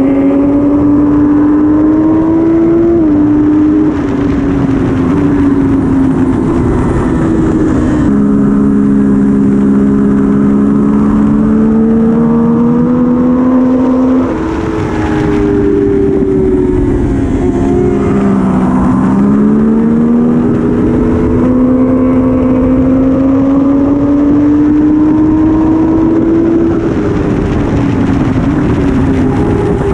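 Triumph Daytona 675R's three-cylinder engine under hard acceleration, heard onboard: its pitch climbs steadily and drops sharply several times as the rider shifts gears, over the rush of wind past the bike.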